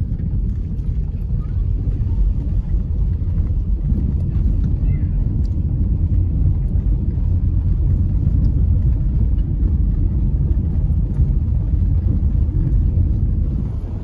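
Car driving slowly on an unpaved dirt road, heard from inside the cabin: a steady low rumble of engine and tyres on the rough surface.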